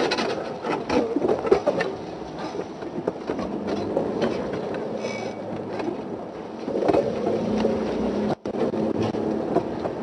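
Safari game-drive vehicle driving off-road over rough ground: the engine runs steadily under a string of irregular knocks and rattles from the jolting body. The sound cuts out for an instant near the end.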